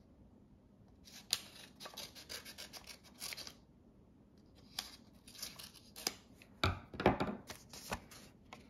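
Scissors snipping a paper envelope open, with the crackle and rustle of the paper being handled, in two bouts of irregular sharp snips and rustling.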